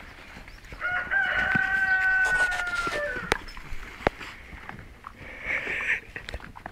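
A rooster crows once, a single held call of about two seconds, followed by a few sharp knocks and scuffles.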